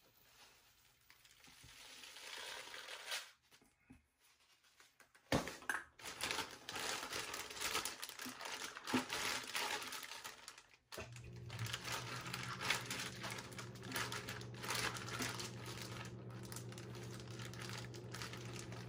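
Plastic zipper storage bag crinkling and rustling as it is handled and sealed shut, with chicken legs in brine inside. The crinkling starts about five seconds in after a nearly silent start, and a low steady hum joins about halfway through.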